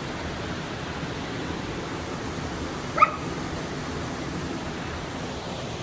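Steady rush of a waterfall, with one short, sharp dog yip about three seconds in.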